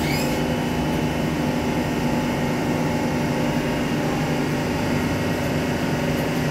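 Frecciarossa 1000 high-speed electric train standing at the platform with its onboard equipment running: a loud, steady electric hum with several held low tones under a constant whirr.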